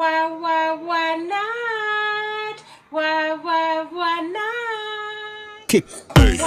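A female voice singing a short melody alone, in two phrases of held notes that glide between pitches. Near the end a dance-music beat with a heavy kick drum comes in.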